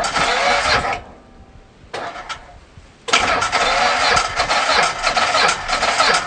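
Polaris Ranger 500 EFI's single-cylinder four-stroke engine being cranked on the starter. There are two short tries, one of about a second and a brief one about two seconds in. Then from about three seconds in it turns over continuously with an even pulsing. This is the no-start engine under diagnosis.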